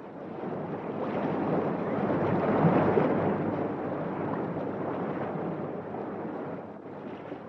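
Sea surf sound effect: a rushing swell of waves against the breakwater that builds to its loudest about three seconds in and then eases off.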